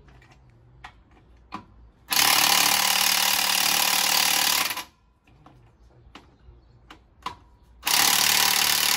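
Impact wrench running on a wheel's lug nuts in two bursts, the first about two and a half seconds long starting about two seconds in, the second about two seconds long near the end. Sharp clicks come just before each burst.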